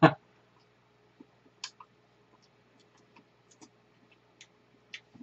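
A short thump at the start, then scattered light clicks and ticks as cake is eaten with plastic forks.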